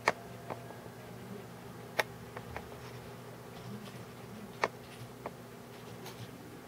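Low steady hum with a scattering of sharp, short clicks, the three loudest near the start, about two seconds in, and about four and a half seconds in.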